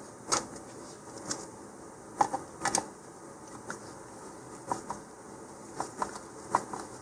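Scattered light clicks and taps as a hand screwdriver turns a pan-head wood screw into a rail button on a fiberglass rocket body tube.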